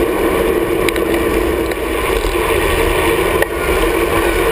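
Steady rush of wind and road noise on a camera mounted on a road bike's handlebars, riding in a pack of racing cyclists, with a low rumble underneath. Two short sharp clicks come about one and three and a half seconds in.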